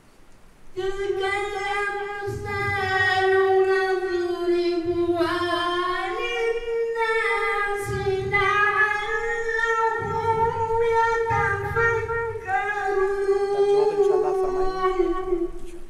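A man's voice chanting Quran recitation melodically, in long held notes with ornamented turns; the voice starts about a second in and its pitch steps up about six seconds in.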